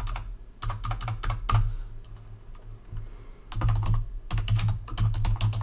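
Typing on a computer keyboard: a run of quick keystrokes, a pause of about two seconds with only a few keys, then another fast run of keystrokes near the end, deleting placeholder text and entering a name.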